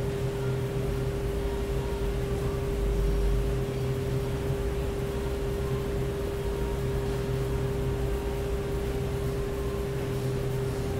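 Steady machine hum with a constant mid-pitched tone over a low rumble.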